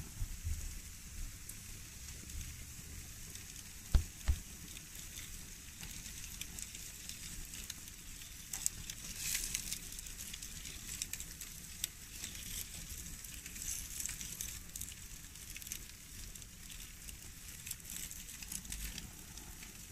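Pork chops sizzling on a grill grate over a glowing infrared burner: a steady crackling hiss with irregular pops. Two short thumps come about four seconds in.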